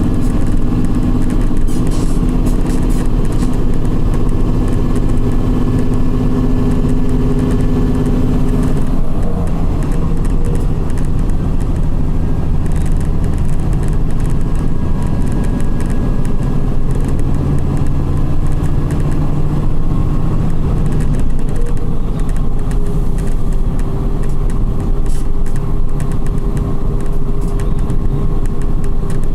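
Volkswagen 17.230 EOD bus engine with a ZF gearbox, running under way. The engine note drops sharply about nine seconds in and changes again a couple of times later.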